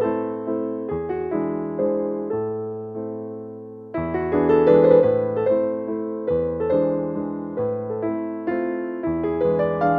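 Background music: an electric piano playing a gentle melody over chords and a steady bass line, with a brief lull about three and a half seconds in.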